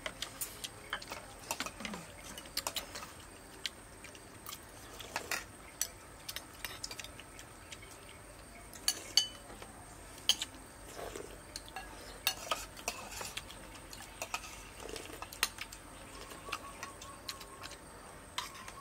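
Metal spoons clinking against porcelain bowls while people eat soup: irregular, sharp clinks scattered every second or so.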